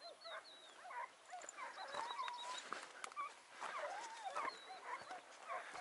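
A pack of hare-hunting hounds giving tongue on the chase: faint, overlapping yelps and bays from several dogs.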